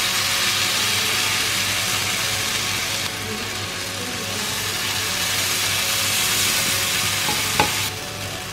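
Beetroot-semolina chilla batter sizzling in ghee on a hot tawa as a steel ladle spreads it, with one sharp click near the end.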